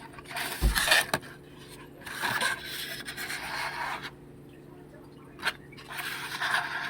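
Scraping and rubbing of toy packaging being opened by hand, in three bursts of a second or two, with a sharp click about five and a half seconds in.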